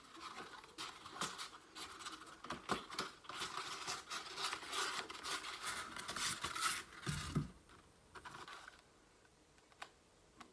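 Packaging being torn open and rustled by hand, a dense scratchy crinkling and tearing for about seven seconds, ending in a dull thump; then it goes much quieter, with a couple of light clicks near the end.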